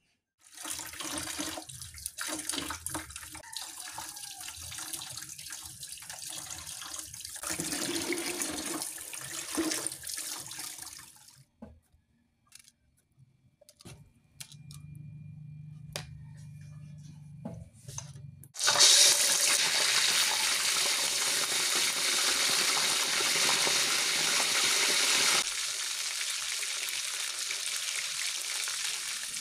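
Water running and splashing from a tap for about ten seconds. After a short pause with a faint low hum, whole tilapia frying in hot oil start about two-thirds of the way in: a loud, steady sizzle.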